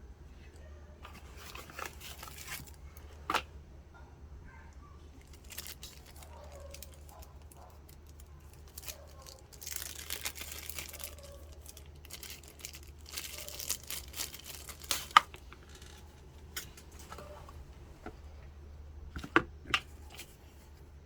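Intermittent rustling and tearing of material being handled, in three longer stretches, with a few sharp clicks in between and a steady low hum underneath.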